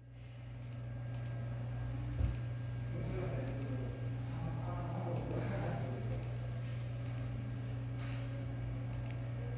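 Computer mouse clicking about a dozen times at irregular intervals while curve points are set on a CT workstation, over a steady low hum.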